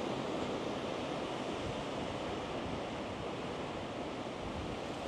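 Steady rushing noise of sea surf and strong wind.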